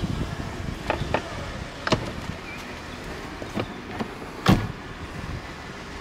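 Jaguar XJ6 car door being shut, one heavy knock about four and a half seconds in, the loudest sound, after a few lighter clicks and knocks.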